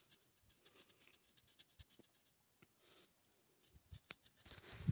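Near silence with faint scattered clicks and light scratching, growing a little busier and louder near the end.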